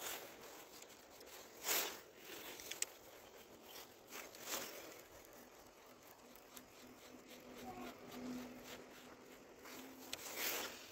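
Handling noise from a jacket sleeve rubbing against a body-worn camera: three loud brushing swishes about 2, 4½ and 10½ seconds in, with a few light clicks between. A faint low hum runs through the second half.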